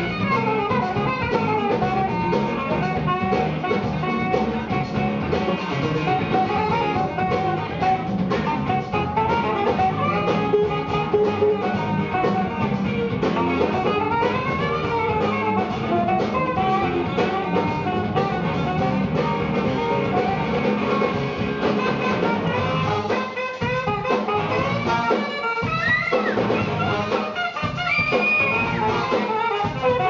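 A live funk-soul band plays an instrumental passage: drum kit and guitar under a horn section of saxophones and trombone. In the last third the band breaks into short hits with brief gaps between them.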